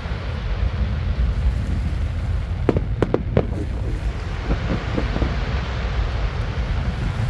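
Aerial fireworks going off: three sharp cracks close together about three seconds in, then a scatter of lighter cracks, over a steady low rumble.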